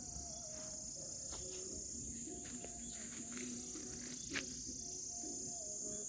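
Steady high-pitched drone of insects. A small twig campfire burns close by and crackles a few times, with one sharper snap about four seconds in.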